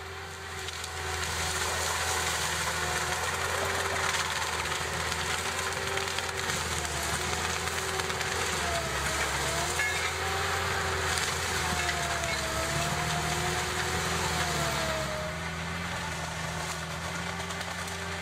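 Heavy machine's diesel engine running steadily under a low hum, its pitch wavering up and down as the load changes.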